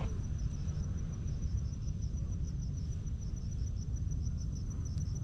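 An insect calling in a high, steady trill broken into rapid even pulses, over a steady low rumble.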